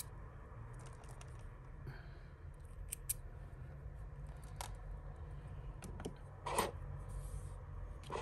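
Scattered small clicks and clinks of costume jewellery pieces being handled and sorted, with a slightly louder knock about six and a half seconds in, over a low steady hum.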